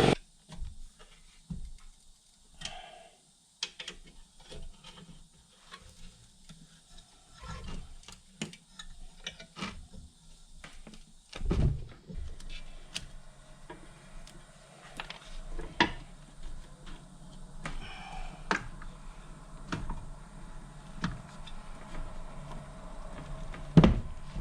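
Irregular clicks, taps and knocks of hand tools and metal parts being handled while a UTV winch is fitted, with a louder knock about halfway through and another near the end.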